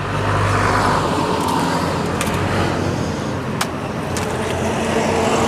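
A motor vehicle going past, its engine and road noise swelling near the start and again towards the end over a steady low hum. A couple of sharp clicks stand out in the middle.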